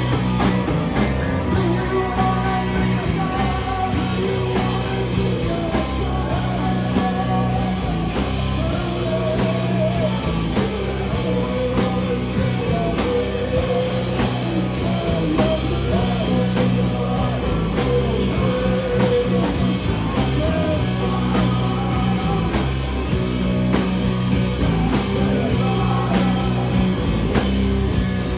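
Live rock band playing an instrumental passage at full volume: a heavy, steady bass-and-drums groove with a wavering melody line over it.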